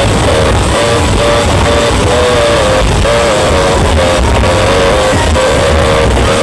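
Very loud dance music played through giant horeg sound systems, with heavy pulsing bass and a wavering melody line over it.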